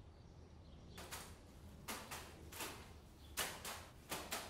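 Clothes being scrubbed by hand: a series of short, irregular brushing swishes, starting about a second in.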